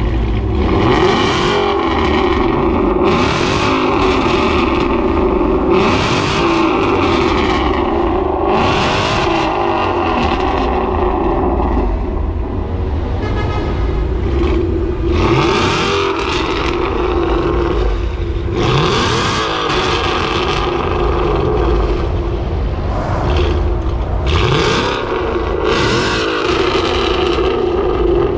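Ford Mustang GT's 5.0-litre V8 exhaust running at idle and being revved in repeated blips, a surge every second or two.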